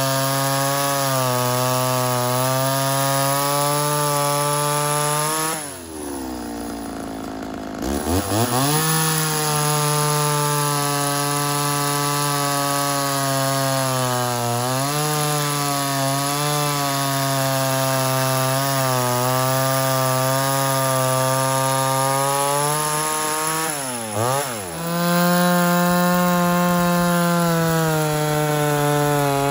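Mildly ported Homelite Super XL Auto two-stroke chainsaw with a bow bar, running at high revs while cutting through a log. About six seconds in the revs drop away for about two seconds, then climb back as it goes into the wood again. Near the end they dip briefly once more and come back a little higher and louder.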